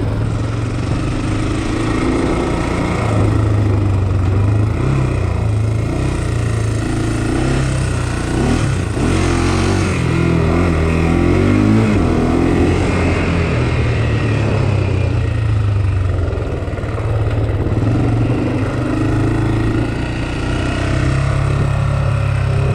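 Honda 400X ATV's single-cylinder four-stroke engine running under way on a trail, the revs rising and falling with the throttle, most changeably around the middle.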